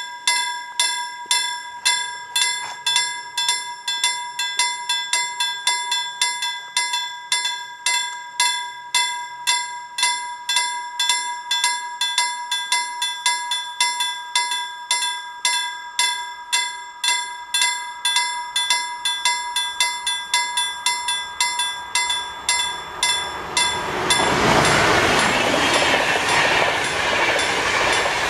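Level-crossing warning bell striking steadily, about two strikes a second. Near the end an Intercity passenger train passes over the crossing, the running noise of its wheels on the rails covering the bell.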